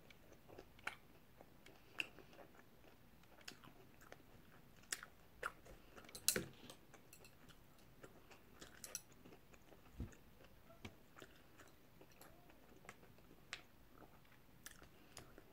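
A person chewing and nibbling a salt and pepper spare rib held in the hand: faint, irregular mouth clicks and bites, with one louder click about six seconds in.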